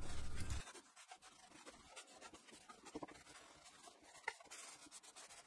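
A low hum stops abruptly about half a second in. Then a cloth rubs faintly over the waxed wood of a drawer, with a few light clicks and a small knock about four seconds in.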